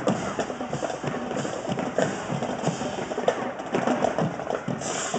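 High school marching band drumline playing a fast drum cadence: dense, rapid strokes on the drums with no horns standing out.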